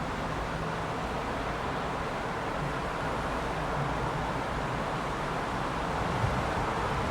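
Steady heavy rain on a city street, an even hiss over a constant low rumble of urban background.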